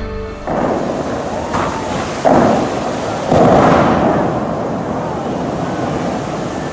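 Tall show-fountain water jets shooting up and spraying as a loud rushing noise, with two stronger surges about two and three seconds in.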